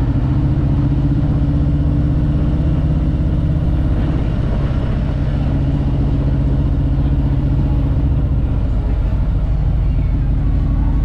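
Harley-Davidson Road Glide's V-twin engine running at low cruising speed, a steady low rumble. It eases off a little about four seconds in and picks up again near the end.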